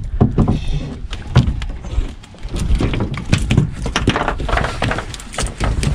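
Irregular thumps and knocks as a freshly landed trevally flaps on a boat's rubber deck mat and is handled out of a landing net.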